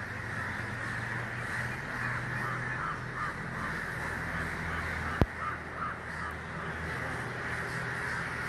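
A flock of crows cawing in short repeated calls, in two spells, over a steady low hum. A single sharp click sounds about five seconds in.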